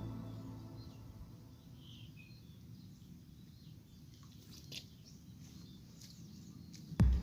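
Quiet outdoor background with a few faint bird chirps as music fades out at the start. Near the end comes a sudden loud knock or splash.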